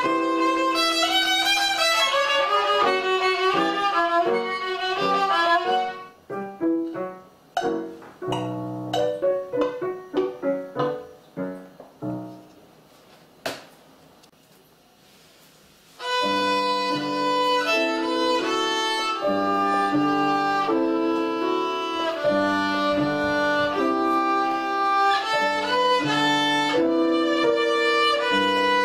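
Violin played by a young child. A bowed passage gives way about six seconds in to a string of short, separate notes that die away, then a pause of a few seconds. A new bowed tune starts about sixteen seconds in.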